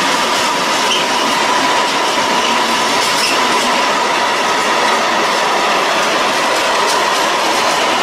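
Freight wagons with tarpaulin-covered steel-coil loads rolling past at a steady speed: a dense, even rumble of wheels on rail with a steady high squeal from the wheels and a few faint clicks.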